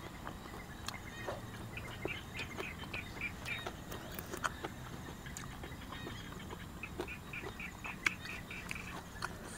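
Small rice-field frogs calling in runs of short chirps, about four a second, twice over, with scattered sharp clicks from eating close by.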